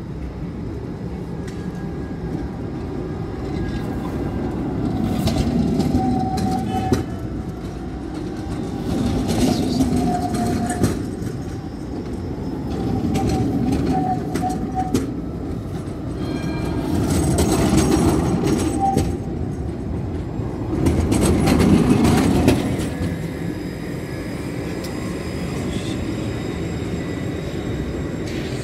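Tram running on its rails: a rumble that swells and fades five times, about every four seconds, with short high squeals and a few sharp clicks on several of the swells.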